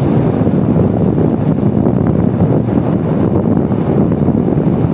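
Steady wind rush buffeting the microphone of a motorbike coasting fast downhill in neutral with its engine switched off, so no engine note is heard.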